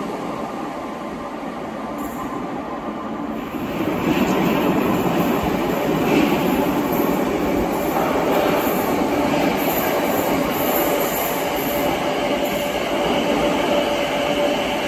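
Merseyrail Class 508 electric multiple units running through an underground station: a train pulls away into the tunnel, then another runs in along the platform with a louder steady rumble from about four seconds in. A thin, steady high squeal joins from about eight seconds in.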